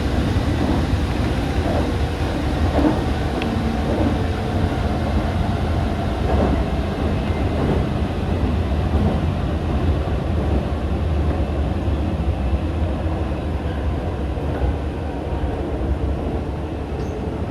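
Hanshin 5001-series commuter train running, heard from inside the front car: a steady low rumble of wheels on rail, with a few clicks over rail joints in the first several seconds.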